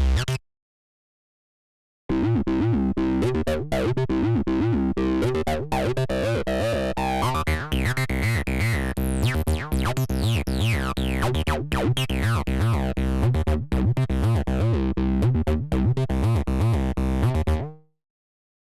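Arturia Acid V, a TB-303-style acid bass synthesizer, playing a factory preset: a fast, busy sequence of short notes with resonant filter sweeps gliding down. The previous preset cuts off right at the start, and after a pause of about a second and a half the sequence runs until it stops shortly before the end.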